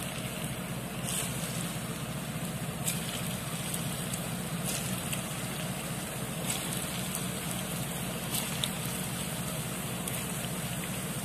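Malai kofta balls sizzling steadily as they shallow-fry in hot refined oil in a non-stick frying pan, with a few sharp crackles now and then.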